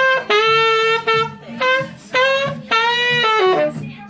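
Tenor saxophone (Selmer Reference 53 with a metal mouthpiece) playing a jazz-funk phrase of held notes shaped with vibrato. The phrase ends in a quick descending run near the end, played over a backing track.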